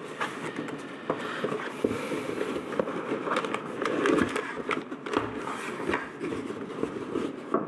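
Cardboard box and packaging being handled and opened by hand: continuous rustling and scraping with small knocks and clicks.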